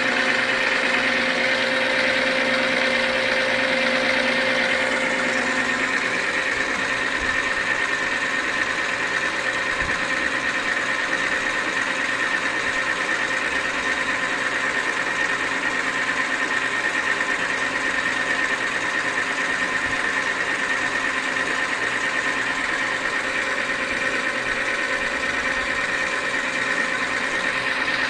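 Manrod MR 301 bench lathe running steadily while machining, a continuous mechanical whine with several held tones. About five seconds in the sound changes as a lower hum drops away.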